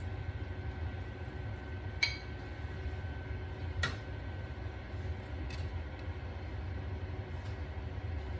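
Steady low kitchen hum with a faint high whine, and two light clinks of dishes or utensils, about two and four seconds in.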